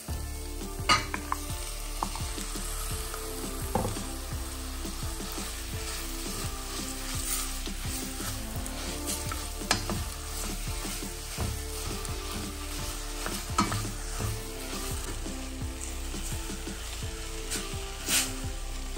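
Minced meat and onions sizzling in hot fat in a stainless steel pot while a wooden spatula stirs and breaks up the meat. The spatula knocks against the pot now and then, about five sharp taps.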